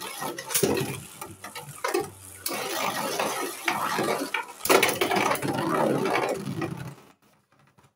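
Spinning Beyblade tops scraping and rattling across a plastic stadium floor, with several sharp clacks as they collide; the noise stops about seven seconds in.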